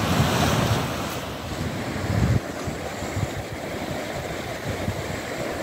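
Sea surf washing onto a sandy beach, with wind buffeting the microphone, heaviest for the first couple of seconds before it drops off.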